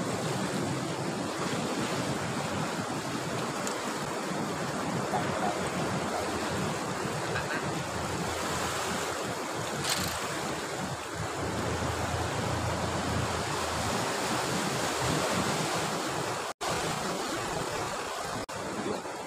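Sea surf breaking and washing against the shore, with wind buffeting the microphone; the sound cuts out for an instant near the end.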